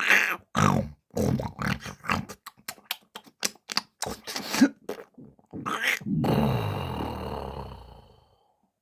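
A man snoring: a run of short, irregular, rasping breaths, then one long snore from about six seconds in that slowly fades out.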